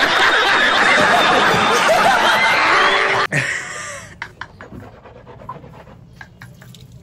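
A man laughing and shouting with loud studio-audience laughter, an inserted clip from a TV comedy show, cut off suddenly about three seconds in; after that only faint clicks.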